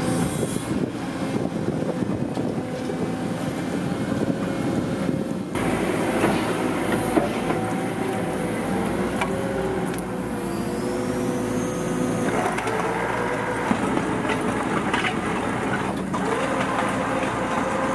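Excavator engine and hydraulics running while a Simex VSE 20 screening bucket turns and sifts soil through its screen. It is a steady machine noise with a held tone, changing abruptly about five and a half and twelve seconds in.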